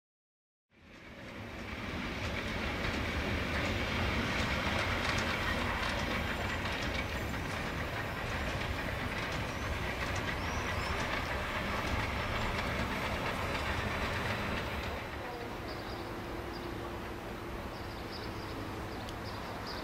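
A train running on the rails: a steady rolling noise that fades in about a second in and eases off somewhat about fifteen seconds in, with a faint steady tone for a few seconds after.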